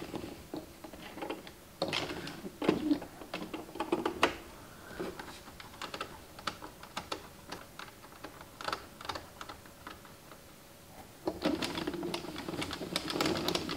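Scattered sharp plastic clicks and taps as yarn is handled at the needles of an Addi Express knitting machine, then, about eleven seconds in, a dense run of rapid clicking as the crank is turned and the carriage works the plastic needles on the first round of a new color.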